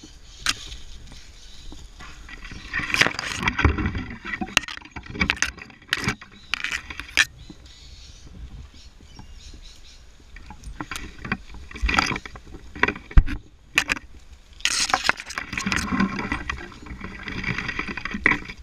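Handled rope ascender being worked up an arborist's climbing rope: irregular clicks and scraping of the device on the rope, with rustling of rope and gear in bursts of a second or two.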